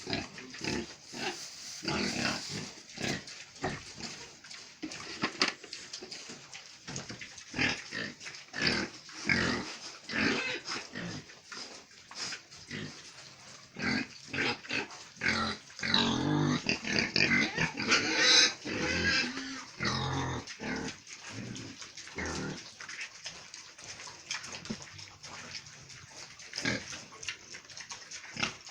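Pigs grunting and squealing, a dense run of short calls that grows louder and busier for a few seconds around the middle.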